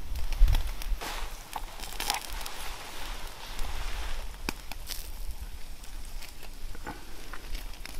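Campfire coals crackling with scattered sharp clicks, and a steel knife clinking and scraping on a wire grill as a steak is turned on it.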